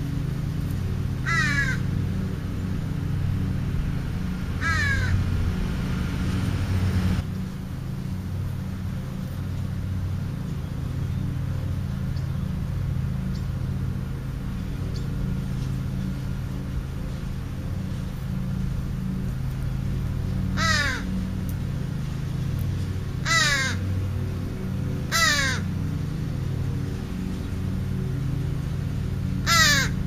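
A crow cawing six times, each a short single caw falling in pitch: two in the first few seconds and four in the last ten. A steady low hum runs underneath.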